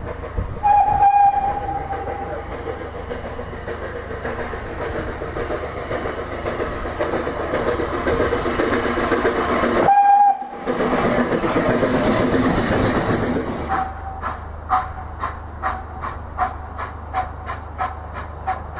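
Steam locomotive whistle sounding a short toot about a second in and again briefly near ten seconds, over the hiss and rumble of a small steam tank engine running past close by. Then a saddle tank steam locomotive working hard, its exhaust chuffing at about two and a half beats a second.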